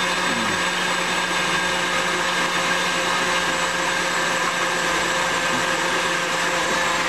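KitchenAid stand mixer running steadily, a motor hum with steady whining tones above it, as it mixes chocolate pudding that is still thin.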